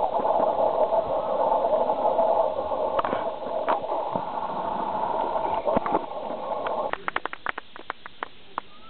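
Indistinct chatter of many voices, which drops away about seven seconds in and gives way to a quick run of sharp knocks or taps.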